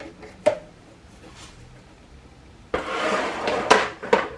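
A sharp click, then about a second and a half of rustling with several sharp clicks and clatters as easel parts and packaging are handled.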